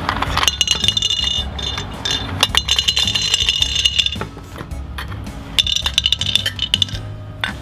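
Round hard candies poured from a stainless steel bowl into a glass jar, clinking and rattling against metal and glass in a quick stream of clicks. The pouring comes in two spells with a short lull in the middle.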